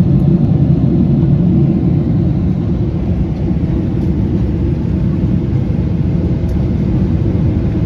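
Steady low roar inside the cabin of a Boeing 777-200 climbing out after takeoff: jet engine and airflow noise heard from a window seat. It eases a little about two seconds in.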